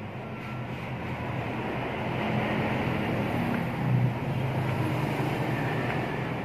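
Low mechanical rumble with a steady hum, growing louder about two seconds in and easing off near the end.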